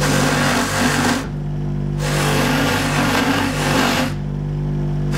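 Bench polishing motor running with a steady hum while a wedding band is pressed against its spinning buffing wheel for its final polish, adding a hiss of friction twice, for about a second and then about two seconds.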